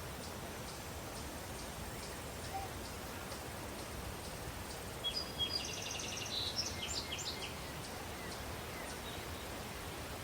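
Daytime countryside ambience: a steady breeze with faint, regular cricket chirps, and a short burst of bird song about halfway through.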